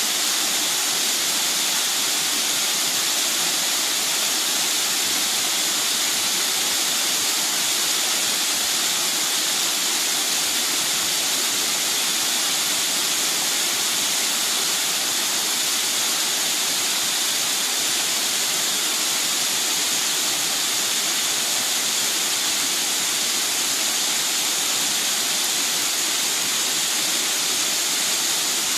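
Mountain stream water rushing steadily over a cascade, a constant even hiss with no breaks.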